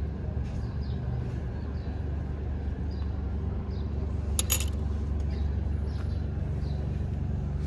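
Steady low rumble with faint scattered light ticks, and one sharp metallic clink with a brief ring about four and a half seconds in.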